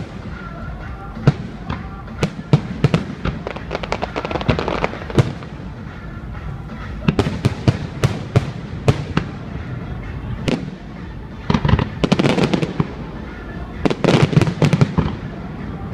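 Fireworks display: a steady run of bangs and crackling bursts, thickening into dense volleys about halfway through and again near the end.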